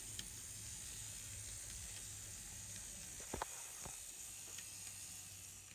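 Bare chassis of an N scale Atlas U25b locomotive running along the track with a quiet, steady, hissing whir, with light ticks and two sharper clicks a little past halfway, such as the wheels crossing rail joints.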